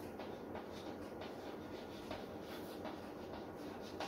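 Handwriting: a quick series of short, irregular writing strokes over a steady faint room hiss.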